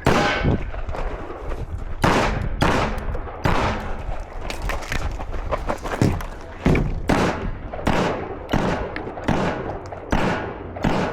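A competition string of gunshots: about fifteen to eighteen sharp shots fired at an uneven pace, often in quick pairs half a second or less apart, with short pauses between groups.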